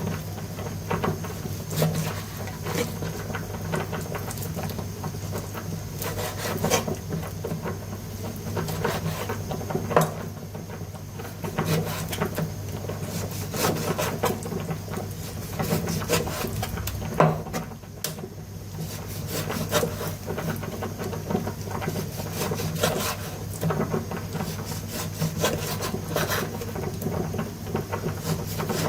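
Food-prep sounds on a wooden board: irregular scraping, rubbing and light tapping, over a steady low hum.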